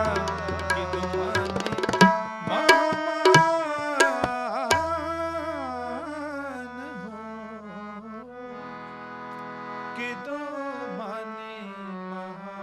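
Kirtan played on harmonium and tabla. Over the first five seconds the tabla plays a run of loud, sharp strokes with deep bass-drum booms. It then drops out, and the harmonium carries on more softly with held chords.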